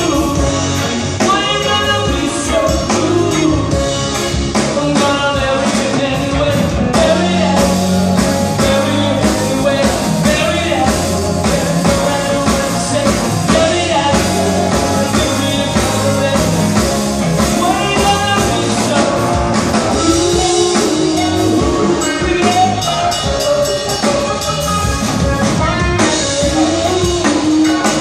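Live band playing a reggae-pop song: a male lead vocal over drum kit, electric guitars and keyboards, amplified through a bar's PA.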